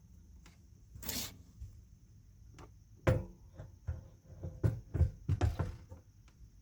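Handling noise as an Olympian Wave 3 catalytic propane heater is lined up on its wall-mounting screws: a short scrape about a second in, then a run of light knocks and clunks from about three seconds on.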